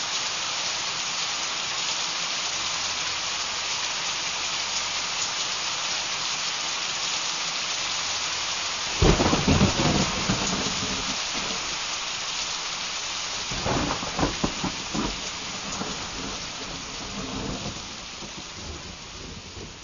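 Heavy downpour hissing steadily. About nine seconds in, a sudden thunderclap cracks and rolls into rumbling, and a second rumble of thunder follows about five seconds later. The rain then fades out near the end.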